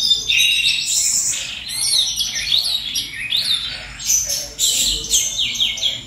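A caged songbird singing a fast, unbroken song of high chirps, quick trills and sliding notes.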